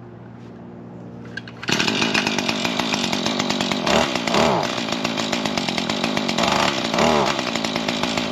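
Husqvarna 440 two-stroke chainsaw idling, then opened up to full throttle a little under two seconds in and cutting into a log, its engine pitch dipping and recovering twice as the chain bites.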